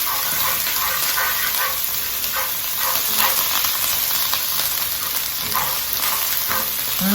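Chopped lemongrass, red chili, garlic and shallot sizzling steadily in hot oil in a frying pan, with a utensil stirring them now and then.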